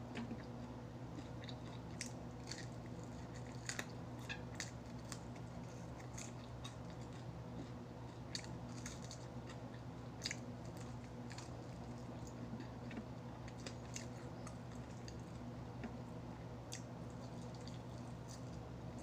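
Close-up eating sounds: a person biting into and chewing crispy fried chicken, with irregular sharp crunches, over a steady low hum.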